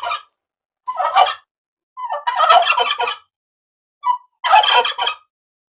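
Male turkey gobbling: a run of rapid rattling gobbles in separate bursts with short pauses between them, the last one near the end.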